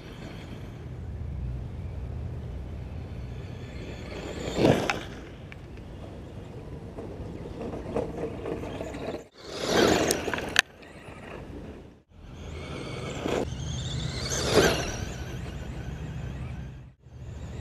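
Traxxas Slash 2WD RC truck's electric motor and gears whining as the truck drives past, swelling and fading three times, with abrupt cuts between passes.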